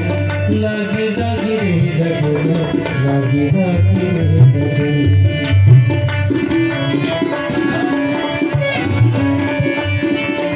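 Instrumental interlude of a Hindi devotional bhajan: a harmonium plays the melody over a steady hand-drum rhythm.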